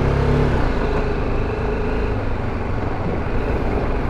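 BMW G 310 GS single-cylinder motorcycle engine running at low speed on a rough dirt street, with road and tyre noise.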